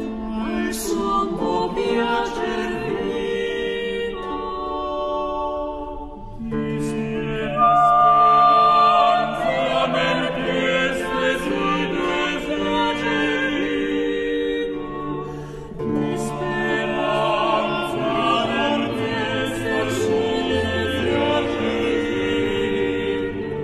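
Vocal music: several singing voices holding long, overlapping notes, with a new phrase starting about six seconds in and again about sixteen seconds in.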